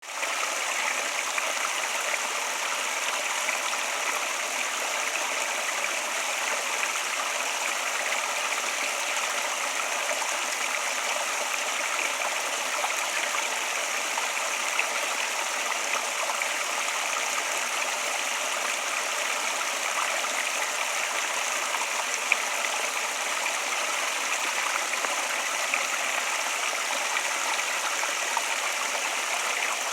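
Flowing water, running steadily with an even rushing hiss and little deep rumble.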